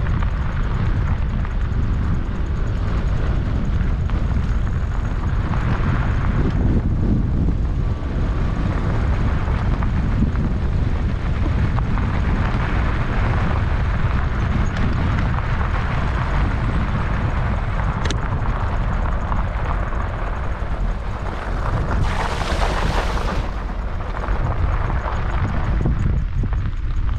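Wind rumbling on the microphone of a camera riding on an e-bike, a steady low rumble mixed with tyre noise. A single sharp click sounds about two-thirds of the way through, and a brighter hiss rises for a second or two near the end.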